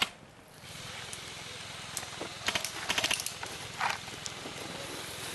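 Footsteps and the rustle of clothing and gear as an airsoft player moves over rough ground, with a sharp click at the start and a few scattered knocks in the middle.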